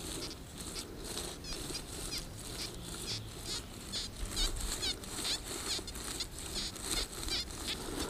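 Metal detector coil sweeping back and forth over dry leaf litter and undergrowth, rustling and swishing in repeated strokes. Faint high chirps come through now and then.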